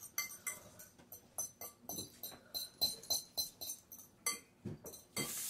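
Light clinks and taps of utensils against glass bowls and jars during a meal, a few short clicks a second at an uneven pace, some with a brief high ring.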